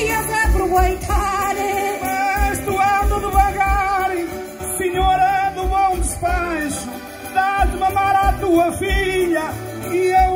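Concertinas (button accordions) playing a lively folk interlude between sung verses, with a steady bass beat underneath.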